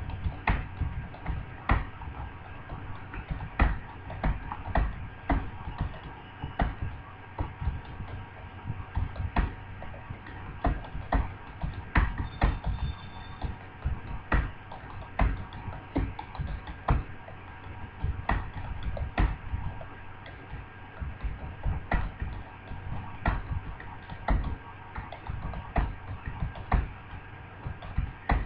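Computer keyboard being typed on at a steady touch-typing pace, a continuous run of irregular key clicks several a second, over a faint steady hum.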